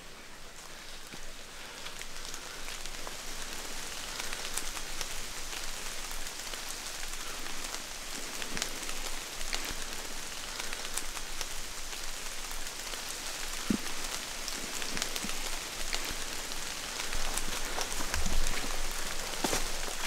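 Steady rain falling in the forest, with many separate drops pattering and dripping close by; it grows louder over the first couple of seconds. Near the end come a few low footsteps.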